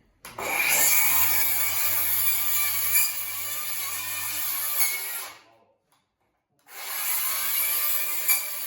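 Circular saw with a Milwaukee NITRUS carbide blade running and cutting through wood that has metal fasteners hidden in it. It starts abruptly, drops out to silence about five and a half seconds in, and starts again near the end.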